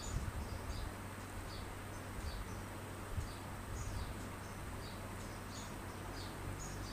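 Faint, short high-pitched chirps at irregular intervals, over a steady low hum.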